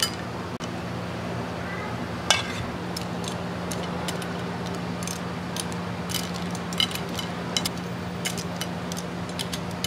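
Metal tongs clinking against a metal frying pan and a ceramic plate as spaghetti with clams is served, in scattered sharp clinks with one louder clink about two seconds in. A steady low hum sits underneath.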